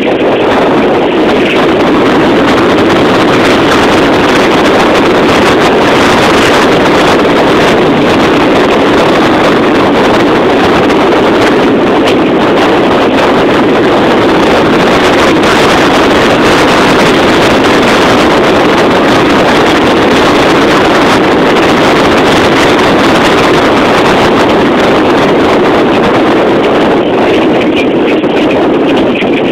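Steady, loud running noise of a vehicle travelling a rough dirt road, heard from on board, with wind buffeting the microphone.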